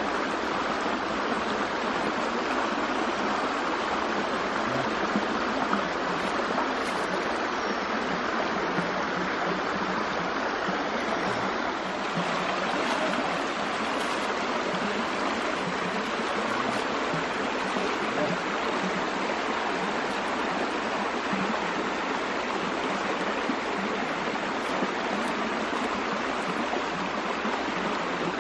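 Shallow stream running over stones and a brushwood barrier, a constant, even rush of water.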